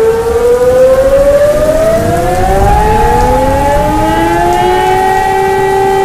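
Several air raid sirens overlapping, one starting right at the outset and others following, each winding up in rising pitch and then holding a steady wail. It is a staged mix imitating a town's civil defence siren network, not a live recording.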